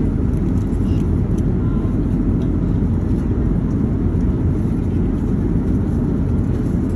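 Airliner cabin noise in flight: a steady, even low rumble of engines and airflow, with a few faint clicks in the first seconds.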